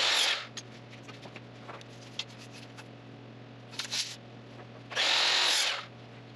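A power tool run in three short bursts: a brief one at the start, a shorter one about four seconds in, and a longer one of nearly a second about five seconds in. A steady low hum sits underneath.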